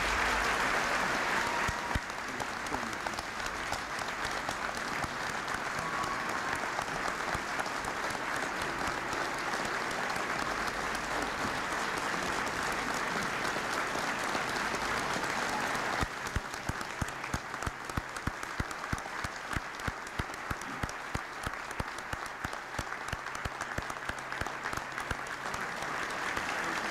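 Large audience applauding, loudest in the first two seconds. A little past the middle the sound thins and single claps stand out more.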